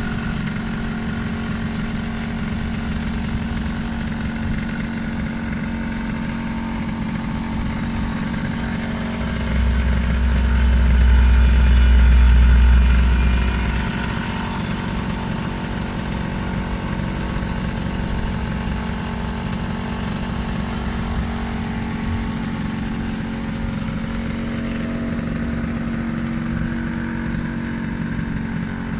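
Yamaha FS1-E moped's 49 cc two-stroke single-cylinder engine idling steadily, with no revving. A louder low rumble swells for a few seconds around the middle.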